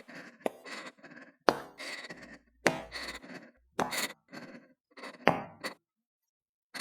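A series of sharp knocks and thuds, about eight to ten, coming at uneven intervals, each dying away quickly.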